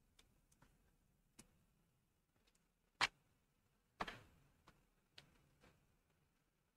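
A handful of faint, scattered computer mouse clicks, the loudest about three seconds in and a short group of them about four seconds in.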